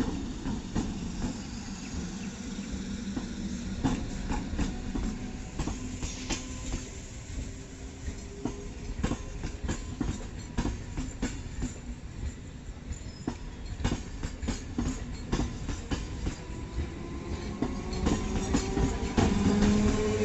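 BEML-built train running on rails, its wheels clicking over the rail joints in quick, uneven knocks over a steady rumble. Near the end a rising whine comes in and the sound grows louder.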